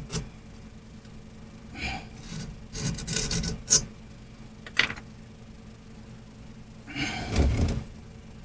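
A metal pick scraping and digging in the stuck seam of a Ford Model A Klaxon horn's housing, in short irregular rasping strokes with a couple of sharp clicks, working at dirt and corrosion that hold the two halves together. The longest, heaviest scrape comes near the end.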